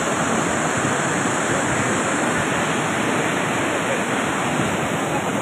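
Flash-flood torrent of muddy water laden with rocks and debris, rushing in a steady, unbroken roar of water.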